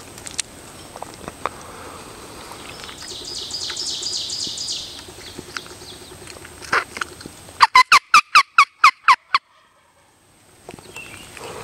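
Wild turkey gobbling: one loud, rapid rattling gobble of about ten notes past the middle. A fainter, higher run of quick notes comes a few seconds before it.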